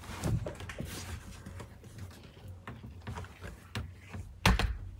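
Homemade folding pass-through door being folded and closed by hand: light knocks and rustling as the hinged panels are handled, then a solid thump at about four and a half seconds as the door shuts into its frame.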